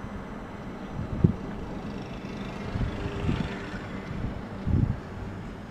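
1995 Solectria E10 electric pickup driving, heard from inside the cab, running on one motor from its newly repaired AMC325 controller: a steady low hum of drive and road, with several low thumps, a sharp one about a second in and a longer one near the end.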